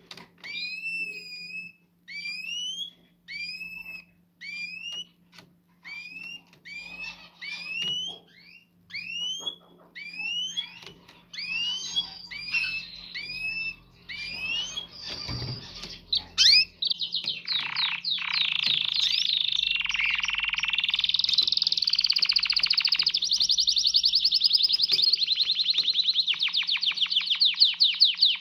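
Caged canaries: a short rising chirp-like call repeated about once a second for the first half. About halfway through, a canary breaks into fast, continuous trilling song that runs on, the excited singing of a canary in breeding condition.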